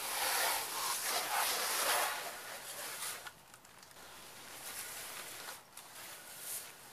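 Water spraying from a hose-end car wash wand onto a car's body panels and windshield, a steady hiss, louder for the first three seconds and softer after that.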